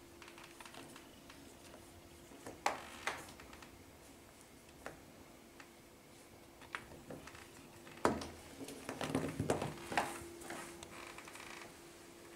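A kitten playing with a toy mouse on a wooden parquet floor: scattered light taps and scuffs, with the loudest knock about eight seconds in and a short flurry of scuffling just after. A faint steady hum runs underneath.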